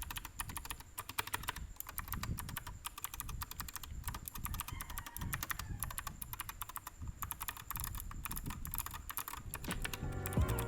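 Fast, continuous typing on a mechanical keyboard fitted with PBT OEM-profile keycaps: a dense run of key clicks and bottoming-out clacks. Music comes in near the end.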